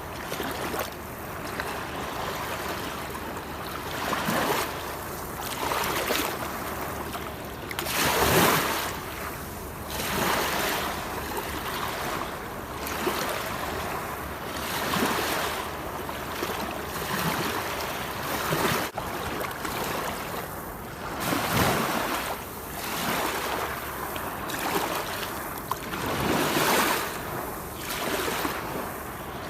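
Waterfall: a steady rush of falling, splashing water that swells and eases irregularly every second or two, with its strongest surges about eight seconds in and again near the end.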